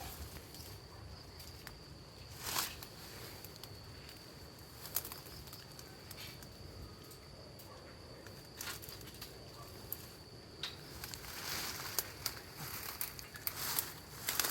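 Dry grass and brush crackling and rustling as someone pushes into a thicket, with sharp snaps about two and a half and five seconds in and thicker rustling in the last few seconds. A steady high-pitched insect drone runs underneath.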